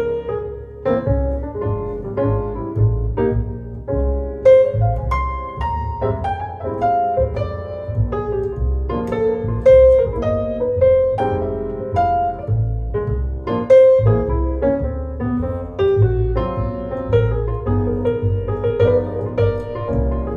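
Instrumental break of a recorded blues song: a piano plays a run of notes over a plucked bass line, without vocals. It is played back through a Pioneer C-21 preamplifier and M-22 power amplifier.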